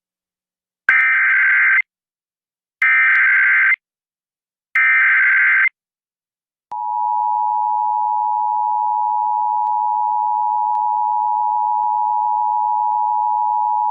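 Emergency Alert System tones on a radio broadcast: three one-second bursts of buzzy digital SAME header data, evenly spaced about two seconds apart, then, about seven seconds in, the steady two-tone EAS attention signal, which holds. The header and attention signal mark the start of an emergency alert, here a flash flood warning.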